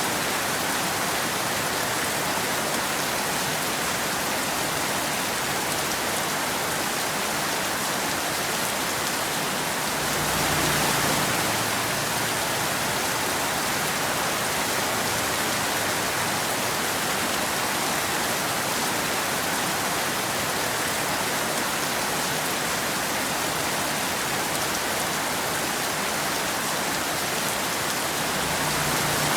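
Steady rain falling, an even hiss with no thunder, briefly a little louder about ten seconds in.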